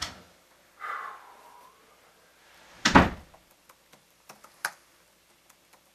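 A door closes with one deep thud about three seconds in, after a short creak about a second in. Light, scattered clicks of typing on a laptop keyboard follow.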